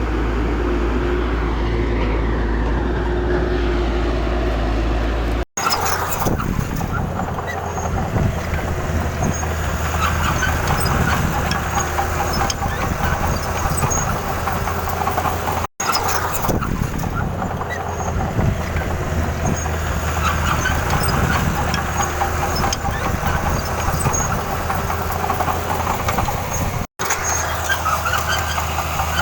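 Diesel engines of heavy earthmoving machinery running under work. The sound is steady, broken by three sudden cuts where the footage is spliced.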